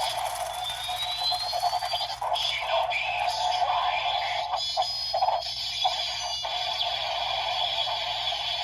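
Electronic sound effects and music from a Kamen Rider Desire Driver toy belt with the Shinobi Raise Buckle, played through its small built-in speaker. A rising whistle-like tone comes in the first two seconds, with a few clicks around the middle.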